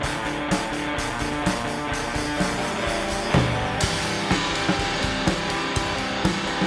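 Rock music: electric guitar playing over a drum kit that keeps a steady beat of about two hits a second.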